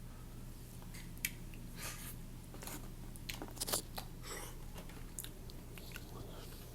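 Close-miked wet chewing of noodles, with irregular smacks, clicks and short mouth noises.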